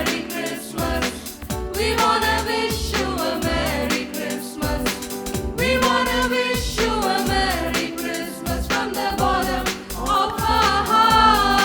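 A group of singers sings a Tamil Christian Christmas song over band accompaniment with a steady beat.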